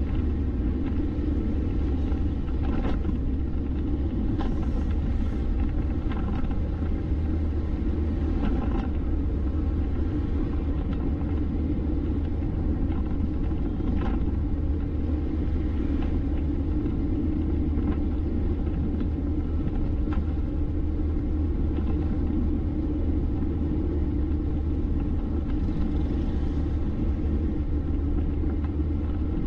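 A vehicle driving on a road: a steady low rumble of engine and tyres, with a few faint brief knocks along the way.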